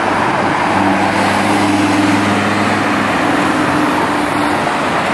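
Lamborghini Huracán's V10 engine running as the car pulls away, a steady low drone over street traffic noise.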